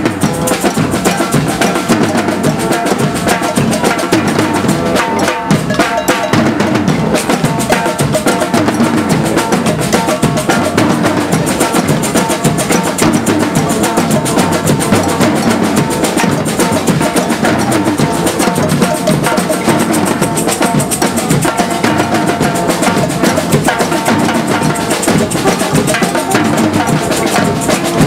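A street drum corps playing a steady, driving rhythm on drums and hand percussion.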